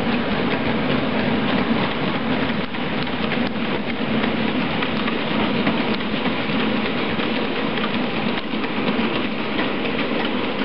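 Model diesel locomotive running along the layout track hauling a train of tank wagons: a steady rolling rumble and hiss of wheels on rail.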